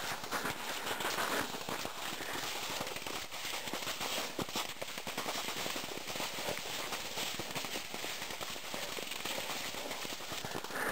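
Cross-country skis sliding and crunching over tracked spring snow, a continuous dense crackle of many small clicks.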